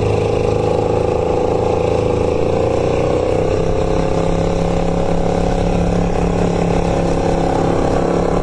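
Rear-mounted Chevrolet 305 V8 of a late-1980s American Sidewinder boat running steadily under way, its pitch rising slightly a couple of seconds in and then holding.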